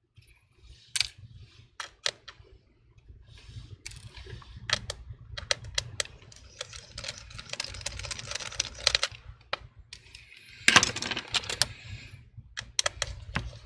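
Small metallic clicks, taps and scrapes from a precision Phillips screwdriver working the screws that hold a laptop battery, with a louder clatter about eleven seconds in.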